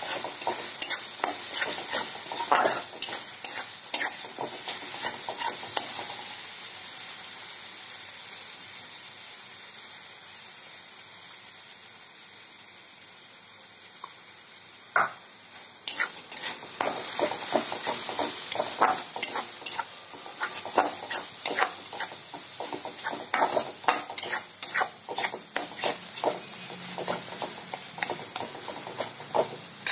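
Ground onion, garlic, ginger and chilli paste sizzling in hot oil in a pan while a metal spatula stirs it and scrapes the pan. There are quick scraping strokes for the first few seconds, then mostly sizzling alone, then steady stirring again from about halfway on.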